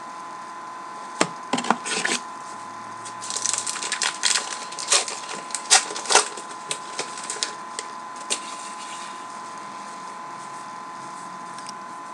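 A pack of baseball trading cards being opened and its cards handled: a run of sharp crackles and clicks from the wrapper and card stock that stops about two-thirds of the way through.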